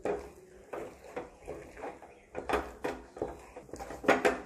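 Wooden spatula scraping and knocking against a nonstick pan while stirring a thick semolina mixture, in irregular strokes, the loudest near the end.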